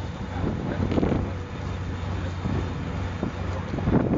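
A boat's engine running steadily at low revs under wind buffeting the microphone, which comes in gusts about a second in and again near the end.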